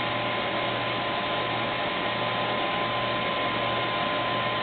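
Steady hiss-like background noise with a faint steady hum and a thin high whine, unchanging throughout.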